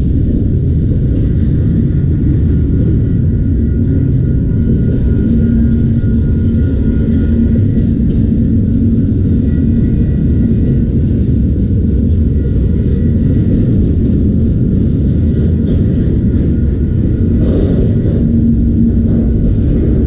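Autorack freight train rolling past, a loud steady rumble of wheels on rail, with a faint steady whine above it throughout.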